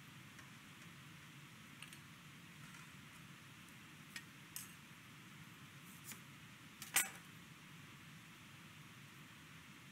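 A handful of light clicks and clinks from food and kitchen utensils being handled on a cutting board and stainless steel tray, the loudest about seven seconds in, over a faint steady hiss.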